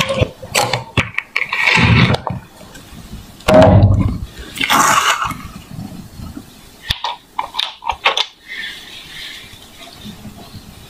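Thick mango-yogurt mixture being stirred and poured, with gurgling, splashing bursts of liquid. Later come a few sharp clicks from a plastic popsicle mold as a frozen popsicle is pulled out.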